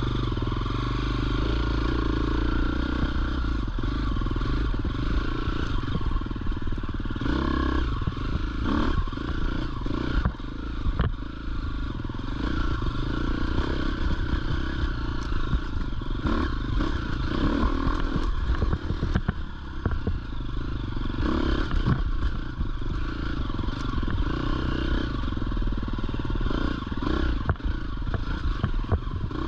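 Dirt bike engine running as it climbs a rocky trail, its revs rising and falling with the throttle several times, with short clattering knocks as the bike rides over the stones.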